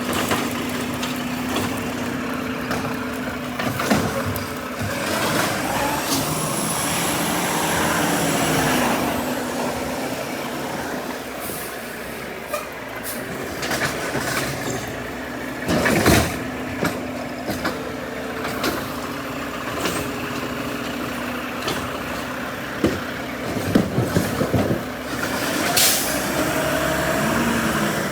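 Heavy truck running, with air-brake hiss, a high squeal lasting a few seconds about six seconds in, and three sharp bangs spread through.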